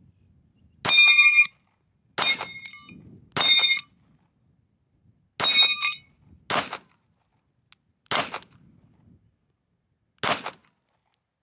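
Beretta M1934 pistol in 9mm Corto (.380 ACP) fired seven times, one to two seconds between shots, at a steel spinner target. The first four shots are each followed by a ringing clang of steel plate being hit; the last three have no ring.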